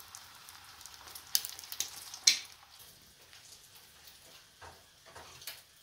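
Beaten eggs frying in hot vegetable oil in a pan, sizzling with sharp crackling pops. The sizzle dies down about three seconds in, leaving only a few faint clicks.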